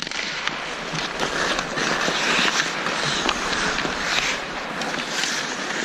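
Ice hockey skates scraping and carving the ice, with scattered stick and puck clicks, as play starts from a faceoff; a sharp clack at the very start as the puck is dropped and the sticks meet.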